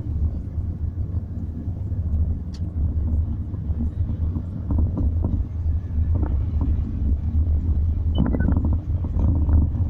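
Steady low rumble of a car driving on city streets, engine and tyre noise heard from inside the cabin.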